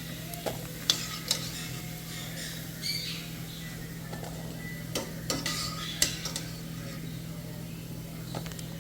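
A metal spoon clinking and scraping against a pot while frying snacks are stirred and lifted out of hot oil: scattered sharp clicks over a faint steady hum.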